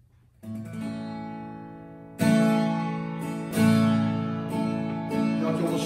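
Acoustic guitar strumming chords: a soft chord sounds about half a second in, then louder strums at about two seconds and again at three and a half, each left to ring.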